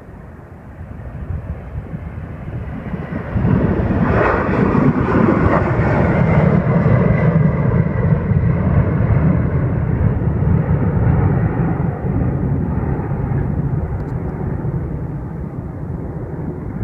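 McDonnell Douglas MD-11 trijet's engines at take-off power during climb-out: a deep jet rumble that swells sharply about three seconds in, stays loudest through the middle, then slowly fades as the aircraft climbs away.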